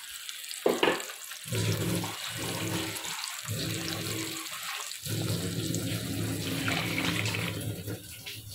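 Water poured into a kadai of freshly ground masala paste in hot oil, splashing in several pours with short breaks, to thin it into gravy.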